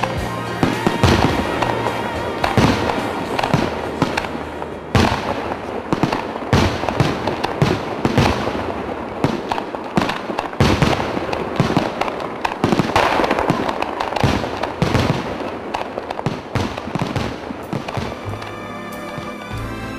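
Fireworks going off: a rapid, irregular series of bangs and crackling over a dense hiss, with music underneath.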